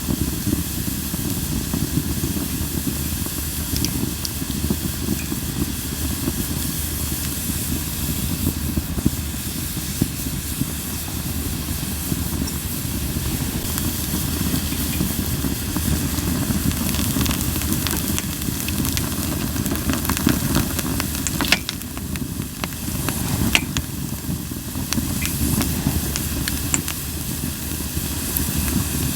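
Linden (basswood) firewood burning in a campfire: a steady hiss over a low rush of flames, with a few sharp crackles, most of them about three quarters of the way through.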